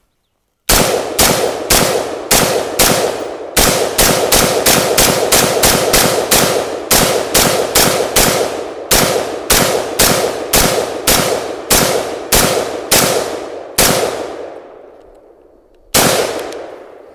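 AR-15 rifle fired semi-automatically in a rapid string, about three shots a second for some thirteen seconds. The last shot of the string trails off in a long echo. After a short pause, one more single shot follows near the end.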